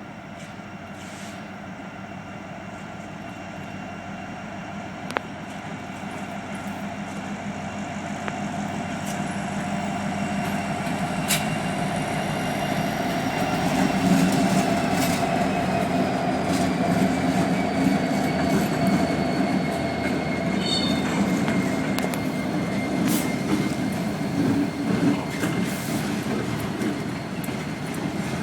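Kansas City Southern freight train led by EMD SD-series diesel locomotives drawing near and passing: the engines' rumble grows steadily louder over the first half, then the train rolls by steadily. About midway, a thin high tone slowly drops in pitch.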